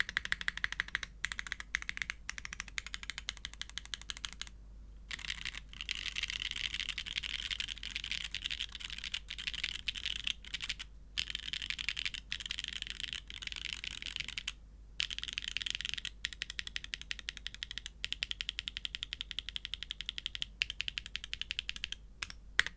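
Mechanical keyboard keys clicking in rapid runs with brief pauses: a Geon F1-8x v2 Classic with an aluminium plate, O-ring mount and Franken switches (OP clear glass tops on Gateron Raw housings and stems, factory lubed) under GMK keycaps, with alphas, modifiers and the spacebar pressed in turn.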